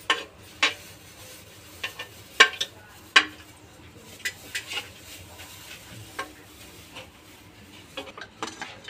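Steel ladle stirring thick mutton curry in an aluminium pressure cooker, with irregular scrapes and sharp knocks against the pot, the loudest a couple of seconds in; the meat is being checked for tenderness after pressure cooking.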